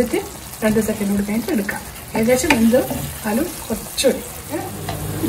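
Wooden spatula stirring and scraping a thick chicken curry in a nonstick pan as the curry sizzles, with a couple of sharp clicks of the spatula against the pan.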